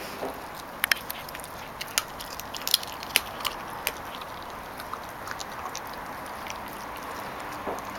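Yellow Labrador puppy gnawing a raw chicken leg, the bone giving irregular sharp cracks and crunches between her teeth, most and loudest in the first half.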